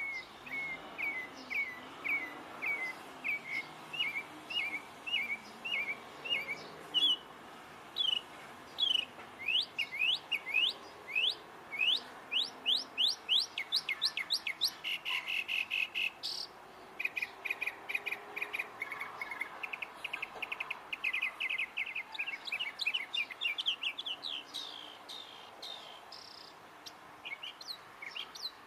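A songbird singing a long, varied song of repeated phrases. It starts with short chirps about two a second, moves into quick rising whistles that come faster and faster, and has buzzy trills around the middle before more rising notes near the end.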